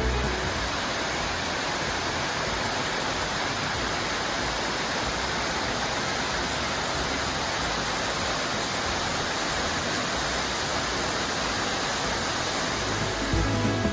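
Tendaki waterfall: a steady, even rush of water falling from a great height, with no change in level.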